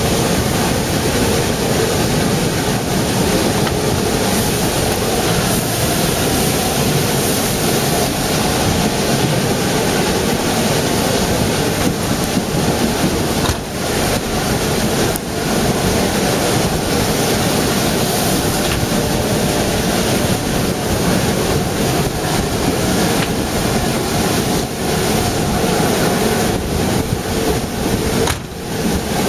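Running noise of a narrow-gauge train, heard from aboard a moving carriage: a steady rumble and rush of wheels on the rails and passing air, with brief dips about a third of the way in and near the end.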